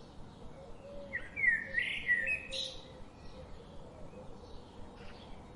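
A small bird chirping: a loud run of twittering, quick up-and-down notes, starting about a second in and lasting under two seconds, with fainter chirps around it.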